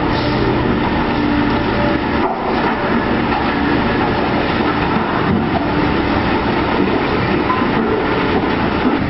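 Heavy diesel machinery running steadily under load, a continuous engine drone with a brief dip about two seconds in.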